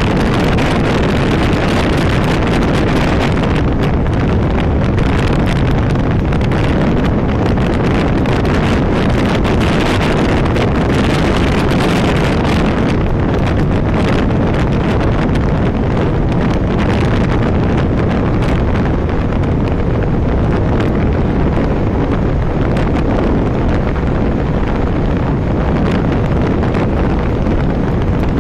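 Loud, steady wind rush on the microphone of a Vespa VXL 125 scooter running flat out at about 100 km/h, with the scooter's running noise underneath.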